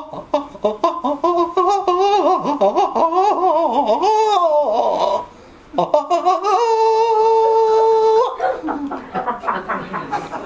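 A person's wordless voice with sliding, wavering pitch that breaks off about five seconds in, then holds one steady note for about a second and a half.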